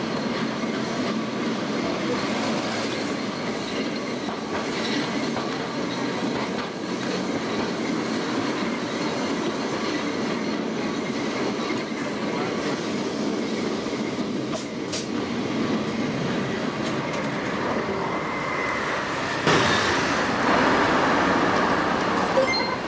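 1930s vintage tramcar running along street rails: a steady rumble and rattle of the car with wheels clacking over the track. It grows louder about twenty seconds in.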